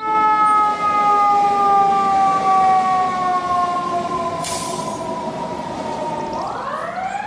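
Toy fire truck's siren wailing: one long tone that slides slowly down in pitch, then sweeps back up near the end.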